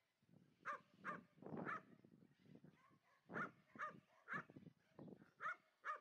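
Kelpie working dog barking: about ten short, sharp barks in two runs with a gap of about a second in the middle.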